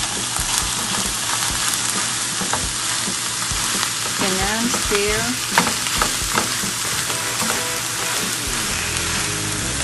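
Raw ground chicken and vegetables sizzling in a frying pan on medium heat, with the steady hiss of frying. A spatula stirs and breaks up the meat, giving frequent short scrapes and knocks against the pan.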